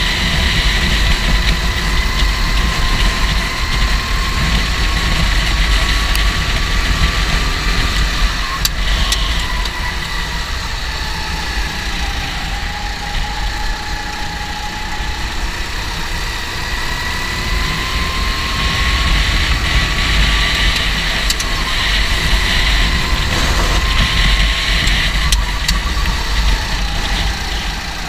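Go-kart engine running under way, its pitch rising and falling slowly as it speeds up and slows, over a steady low rumble.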